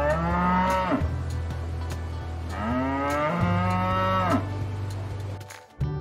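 A Holstein cow mooing twice: a short moo of about a second, then a longer one of nearly two seconds, each rising in pitch as it starts.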